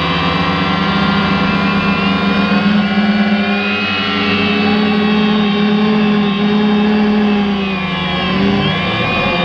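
DJI Phantom quadcopter's four electric motors and propellers humming, recorded by the camera on board: a steady, many-pitched drone whose pitch wavers as the craft drifts and dips then rises again near the end.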